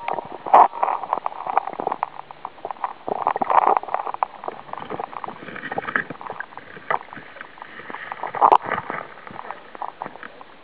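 Creek water sloshing and gurgling, with irregular small clicks and knocks throughout and a few louder surges.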